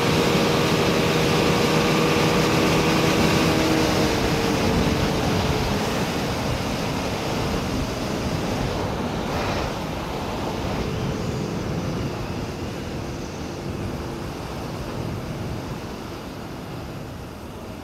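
TVS Apache RTR 160 4V single-cylinder motorcycle ridden at highway speed, with wind rushing over the microphone. The engine note drops away about four seconds in, and the wind rush fades steadily as the bike slows.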